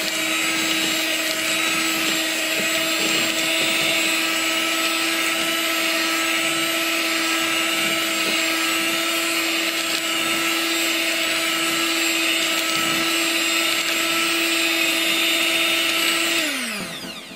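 Electric hand mixer running at a steady speed, a constant motor whine, its beaters churning a dry, crumbly cookie dough in a plastic bowl. Near the end it is switched off and the whine falls in pitch as the motor spins down.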